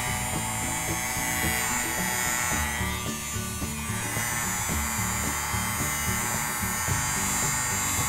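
Toy hair dryer running with a steady small-motor whir, with background music underneath.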